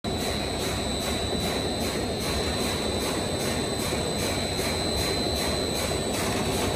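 Spiral paper tube winding machine running: a steady mechanical hum with a high whine, and a faint regular pulse a little over twice a second.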